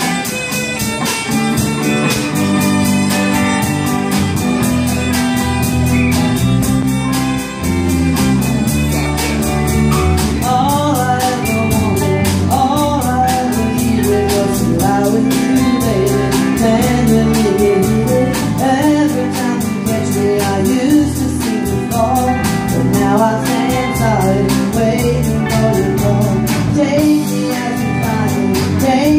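Live band of electric guitar, bass guitar and drum kit playing a country song, with electric violin at the start and a woman singing lead from about ten seconds in.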